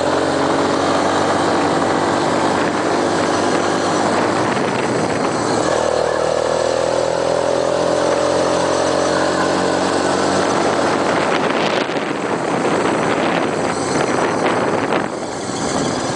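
Off-road vehicle engine running under way on a dirt trail. Its pitch shifts about six seconds in and then climbs slowly as it speeds up. In the second half the engine is mixed with wind and rattling noise, and the sound dips briefly near the end.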